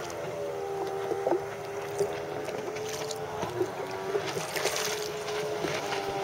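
Rebuilt Polaris MSX 140 personal watercraft engine running at a steady, even pitch during its first water test and break-in, with small water slaps and splashes close by.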